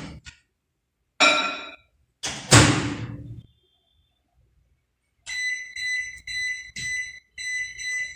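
Microwave oven door opening and shutting with a thunk, then four short electronic beeps from the microwave's controls in the last three seconds, each about half a second long.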